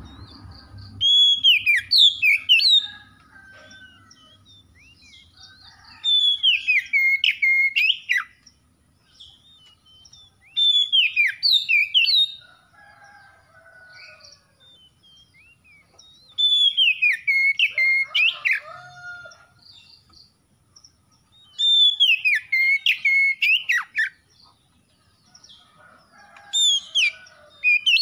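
Oriental magpie-robin singing: six loud phrases of clear whistled notes with falling glides, each about two seconds long and coming roughly every five seconds, with short pauses between.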